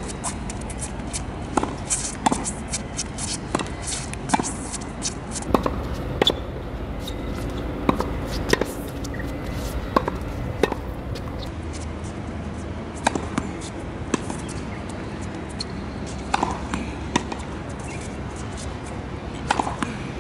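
Tennis balls struck with racquets and bouncing on a hard court during a practice rally: sharp, separate pops every second or so, over steady background noise.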